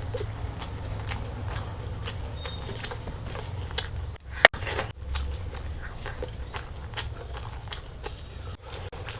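Close-miked chewing and biting of chicken curry and basmati rice, with many small wet mouth clicks and one sharp click about four and a half seconds in.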